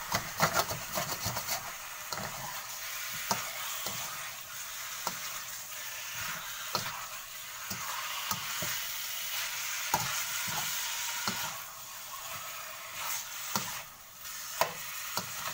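Pork belly chunks sizzling in a wok with melted sugar, stirred with a metal ladle that scrapes and clinks against the pan at irregular moments.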